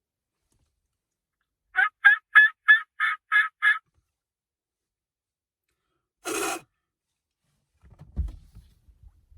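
Turkey yelping: a run of seven quick, evenly spaced yelps over about two seconds. A short burst of noise follows a few seconds later, then faint low thuds near the end.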